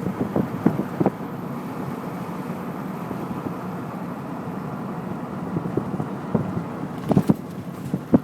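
Car travelling along a highway: steady road and engine noise, with a few short knocks about a second in and again near the end.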